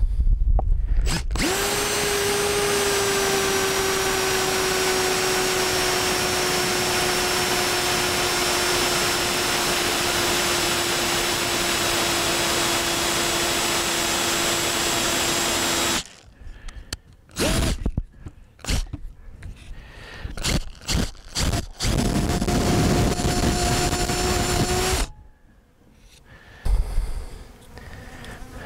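Cordless drill boring into a wooden fence post: the motor runs steadily under load for about fifteen seconds, its pitch sagging slightly, then stops. Short knocks and handling clatter follow, and the drill runs again for about three seconds near the end.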